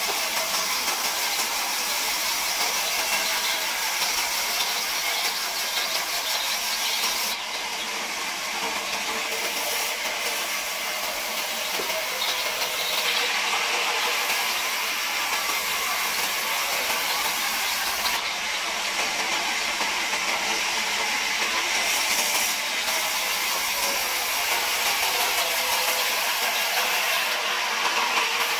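Large stationary band saw running and ripping a thick wooden plank: a steady noise of the blade cutting through the wood, mostly high-pitched.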